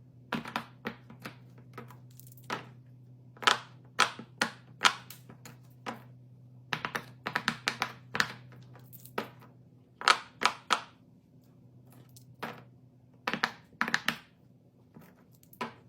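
Irregular sharp taps and clicks, often several in quick succession, from small objects being handled and set down, over a faint steady low hum.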